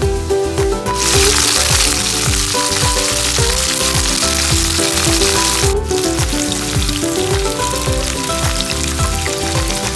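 Sliced okra sizzling in hot oil in a frying pan. The sizzle is loud from about a second in and drops sharply a little past the middle, then goes on more faintly over background music with a steady beat.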